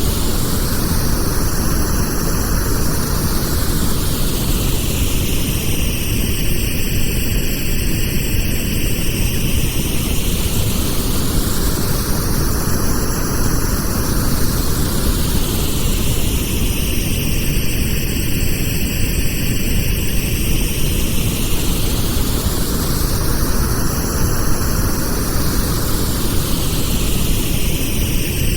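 Synthetic pink noise, a steady even hiss at constant loudness. Its tone slowly sweeps up and down, about once every eleven seconds.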